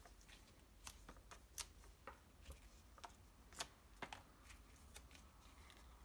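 Faint, irregular small clicks and taps of paper handling as foam adhesive dots (Stampin' Up! Dimensionals) are peeled off their backing sheet and pressed onto a cardstock panel.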